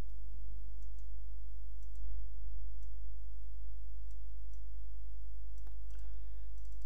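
A few sparse computer mouse clicks over a steady low hum.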